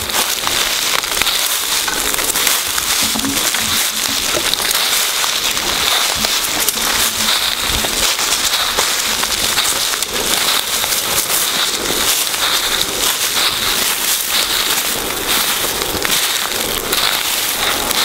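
Footsteps crunching and rustling through dry leaf litter and twigs on a forest floor: a continuous dense crackle of many small snaps.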